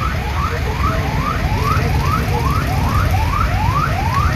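An electronic alarm sounding a rising whoop over and over, about three a second, over the low rumble of vehicle engines.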